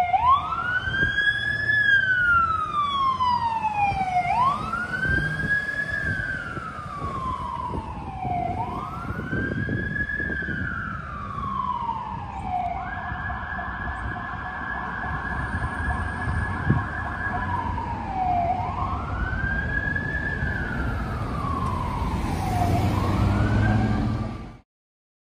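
Fire rescue truck's siren wailing, rising and falling about every four seconds, held steady at its top pitch for about two seconds midway, over the truck's engine running. The sound cuts off suddenly near the end.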